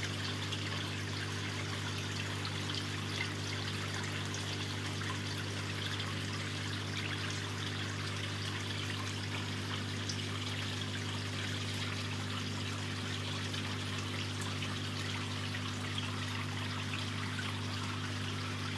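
Water trickling steadily into a fish-farm tank, over a steady low machine hum.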